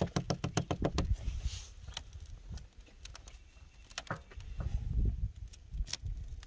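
Ice cracking and clicking on a frozen car: a quick run of sharp cracks in the first second, then scattered single knocks.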